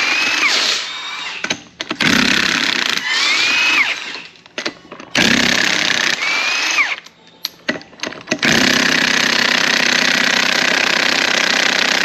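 Cordless impact gun hammering on a wheel lug nut in four bursts. Each of the first three starts with a short rising whine as the motor spins up, and the last burst is the longest. The nut is not breaking loose.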